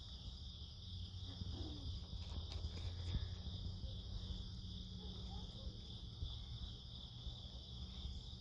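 Steady outdoor insect chorus, a continuous high-pitched trill, over a faint low background rumble.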